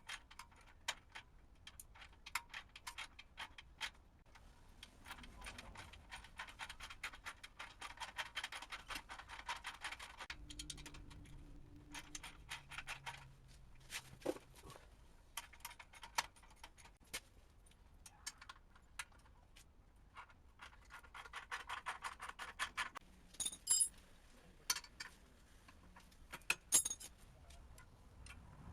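Hand tools on a motorcycle's exhaust fasteners: a socket ratchet clicking rapidly in two long runs while bolts are turned, with scattered metal clinks and knocks between.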